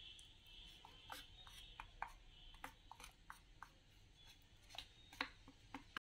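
Faint scattered clicks and scrapes of a steel spoon working wet cement paste, spreading it onto a cement base.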